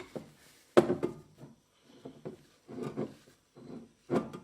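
Clunks and scraping from an espresso portafilter being handled: a sharp knock about a second in, shorter clatter and rubbing after it, and another knock near the end.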